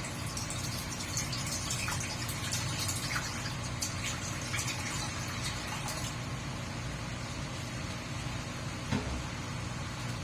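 Water being poured into a hot wok of chicken feet, with splashing and crackling over the first several seconds, over a steady low hum. A single knock about nine seconds in.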